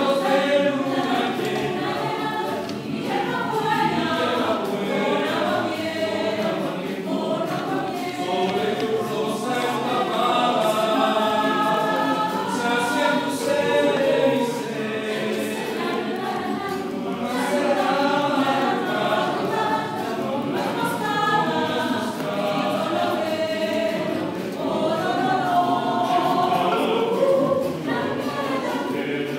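Mixed choir singing a cappella in several parts, the voices moving together in sustained chords.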